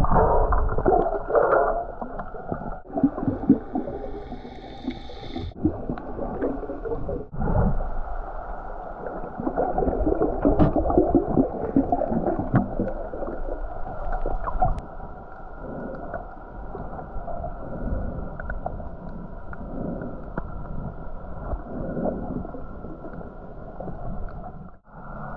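Muffled underwater sound through a submerged camera's housing: water gurgling and churning with the swimmer's movements, a few short clicks and knocks, and abrupt breaks a few times where the recording cuts.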